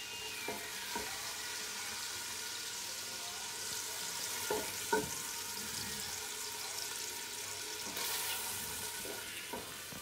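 Sausage and pancetta sizzling in hot fat in an All-Clad stainless pan, a steady high hiss, with a few short knocks of a utensil against the pan as the browned pieces are lifted out; the loudest knock comes about five seconds in.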